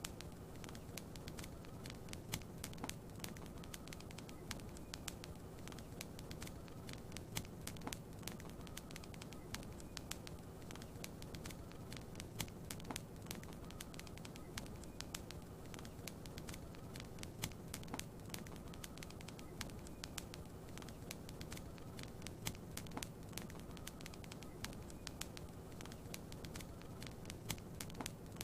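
Wood fire crackling steadily, with frequent small sharp pops over a soft low rumble.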